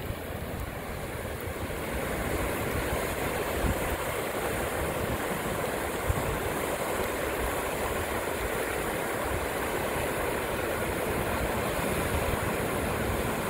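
A flood-swollen river rushing fast along a concrete levee bank: a steady, continuous noise of churning floodwater, a little louder from about two seconds in.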